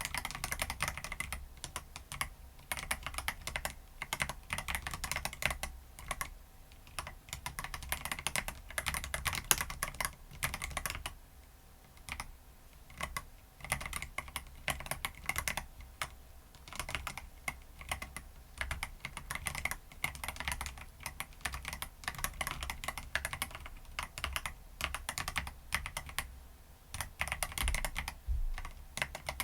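Continuous typing on a CoolKiller CK75 transparent mechanical keyboard, pressed with bare fingertips rather than nails: fast, clicky keystrokes with a few brief pauses about halfway through.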